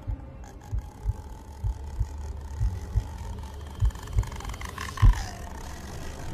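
Low dull thumps in pairs, about one pair a second, like a heartbeat sound effect, over a faint steady hum. The loudest thump comes about five seconds in, with a short falling tone.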